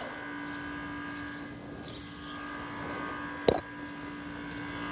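A steady hum of a few fixed tones, with one sharp knock about three and a half seconds in.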